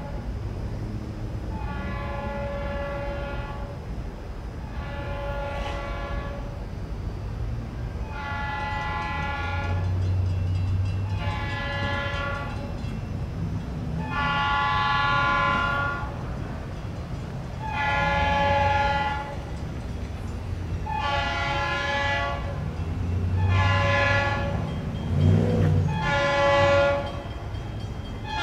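A Leslie RS3L three-chime air horn on a GP40PH-2 diesel locomotive sounds a series of about ten blasts, each one to two seconds long, coming closer together near the end. Under them runs the low rumble of the passing train.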